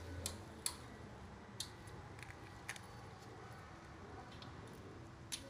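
About five faint, sharp clicks at uneven intervals as a pair of scissors is handled, the loudest less than a second in.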